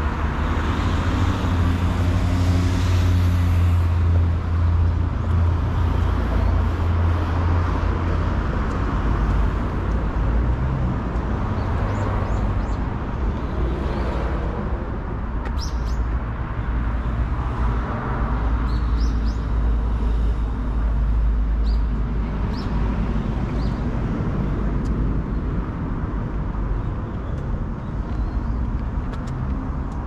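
Road traffic: cars passing with a steady low engine rumble, heaviest in roughly the first ten seconds. A few short high chirps come through in the second half.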